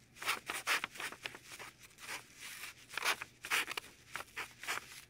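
Crayola felt-tip marker writing on paper: a quick run of short swipes, several a second, one per stroke as a Chinese character is drawn.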